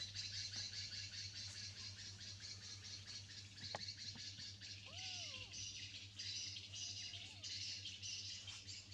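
Background chirping of birds, a dense high twittering that pulses on and off, over a steady low hum. A single short call rises and falls about five seconds in.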